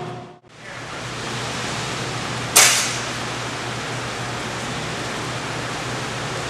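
Gas-powered yard saw's 20 hp Honda engine running steadily, heard as an even rush with a low hum, after a brief dropout at the start. A sharp hissing burst about two and a half seconds in.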